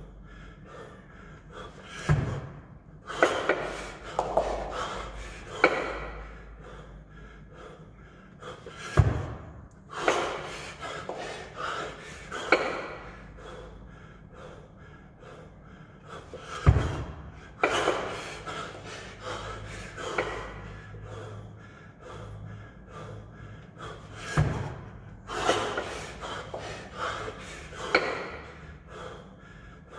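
Heavy, forceful breathing of a man working through a kettlebell long cycle (clean and jerk) with two 24 kg kettlebells: clusters of sharp exhalations and gasps. A heavy thud comes four times, about every seven and a half seconds, once per rep at eight reps a minute.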